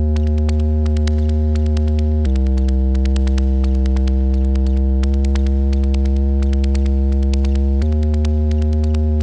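Elektron Monomachine synthesizer playing a single 16-step pattern through Meris Mercury 7 reverb and Polymoon delay pedals. A sustained bass-heavy drone steps to new notes about two seconds in and again near the end, driven by the synth's LFOs. Over the drone runs a fast, even ticking of short clicks.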